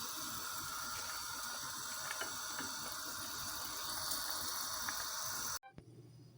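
A pot of pine cones boiling in water: a steady bubbling hiss with a few faint clicks. It cuts off abruptly about five and a half seconds in, leaving a quiet low hum.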